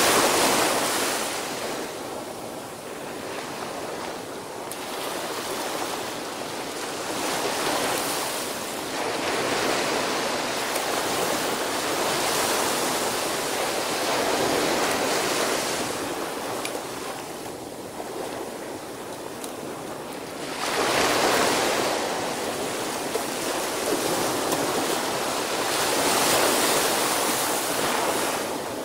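Small ocean waves breaking and washing up a sandy beach, the surf swelling and ebbing every few seconds, with the strongest breaks right at the start and twice in the last third.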